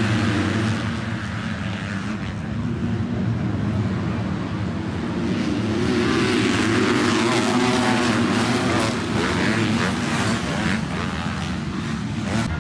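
A pack of 450-class motocross bikes racing past together: many engines revving at once, their pitch rising and falling as riders shift and get on the throttle. The revving is densest from about six seconds in, as the field comes through.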